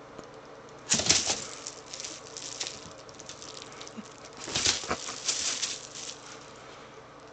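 Nylon fabric of a pet play tent and tunnel rustling and flapping as kittens scramble against it, in two bursts: about a second in and again at about four and a half seconds.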